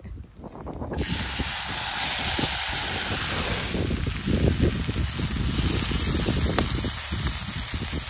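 Food frying in a pan over a campfire: a steady sizzle with fine crackles that starts suddenly about a second in.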